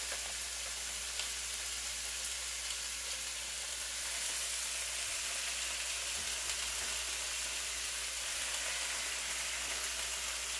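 Pieces of venison round steak sizzling steadily in a little olive oil in a hot pan.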